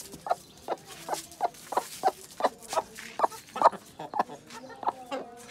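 Chicken clucking in a steady run of short calls, about four a second.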